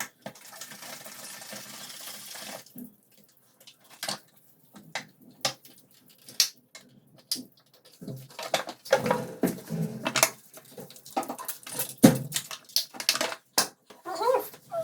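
Running water for about two and a half seconds, then a run of irregular knocks, clicks and scrapes of hard objects, typical of tile-laying work.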